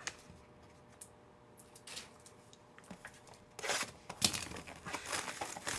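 Trading-card packs being opened and cards handled: scattered light clicks and rustling of wrappers and cards, louder for a second or so about four seconds in.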